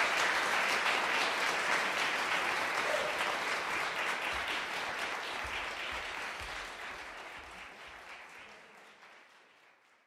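Audience applause, many hands clapping, fading steadily away to silence over about ten seconds.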